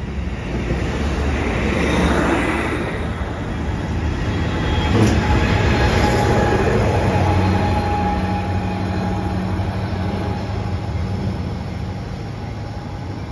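Amtrak bilevel passenger cars rolling past, wheels rumbling on the rails, loudest as the rear cab car goes by about six seconds in. The sound then fades as the train draws away, with a faint thin whine from the wheels partway through.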